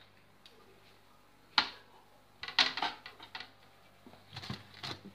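Plastic clicking and clattering as tomatoes are taken from a plastic container in a refrigerator's crisper drawer. One sharp click comes about one and a half seconds in, then a quick cluster of light knocks about halfway through, and a few softer knocks near the end.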